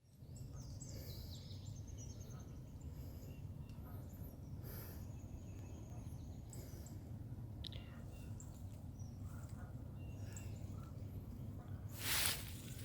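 Outdoor woodland ambience: small birds chirping here and there over a steady low rumble. A brief burst of noise comes near the end.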